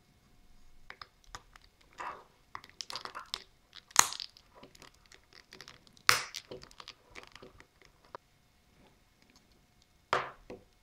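Plastic outer cover of a Philips SHB9100 headphone ear cup being handled and pressed back into place: scraping and rustling with small clicks, and two loud sharp snaps about two seconds apart as it clips on.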